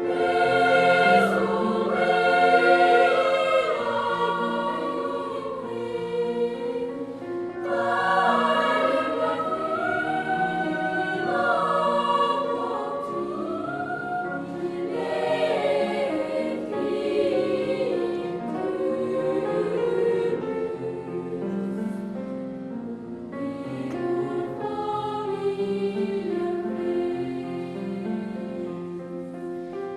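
Background music: a choir singing sustained, slow-moving chords.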